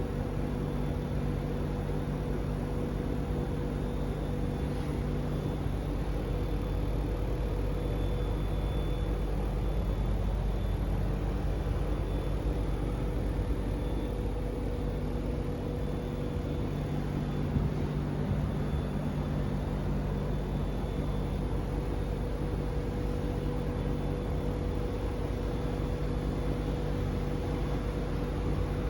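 Mitsubishi Electric GT28 inverter air conditioner running with a steady hum and a faint high-pitched whine that swells and fades. The owner takes the whine for an abnormal noise.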